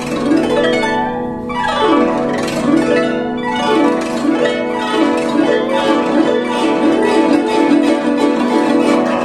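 Guzheng played solo: rapid sweeping glissandi across the strings, rising and falling, over steady sustained low notes. The sweeps quicken to about two a second about four seconds in.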